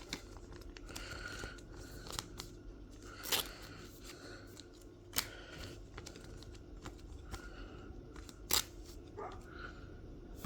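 Pokémon card booster pack being torn open and its cards handled: a low rustle and crinkle of foil and card, with three sharper snaps at irregular intervals.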